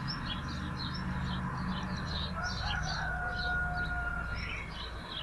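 Small garden birds chirping rapidly throughout, with a single longer held call or tone lasting about two seconds in the middle, over a low steady background rumble.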